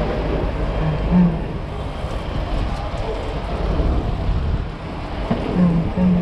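A mountain bike riding a downhill dirt trail: a steady low wind rumble on the camera microphone with the noise and rattle of the bike over rough ground.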